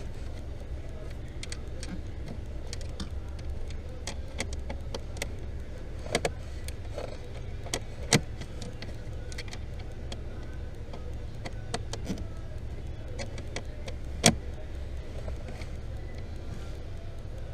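Steady low hum of a car with scattered, irregular light clicks and two sharper knocks, about eight and fourteen seconds in.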